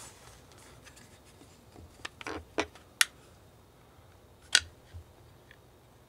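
A handful of short, sharp clicks and light knocks, about seven, bunched between two and five seconds in, the loudest about halfway through. They come from the plastic cover and metal housing of a power wheelchair's swing-away joystick mount being handled and worked loose on a bench.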